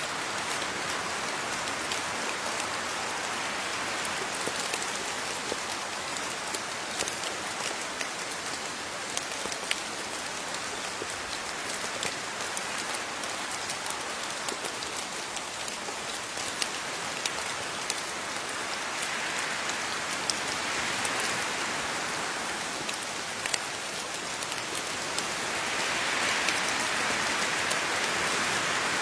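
Steady rain falling, a continuous hiss with many individual drops ticking on a surface; it swells a little about two-thirds in and gets heavier near the end.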